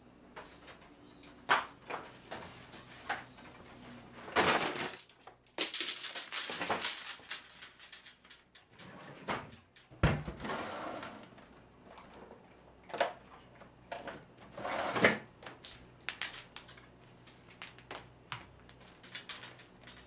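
Scattered knocks, clatter and rustling of materials being handled and set down on a wooden floor, with quiet gaps between. Several sharp knocks stand out, one about ten seconds in.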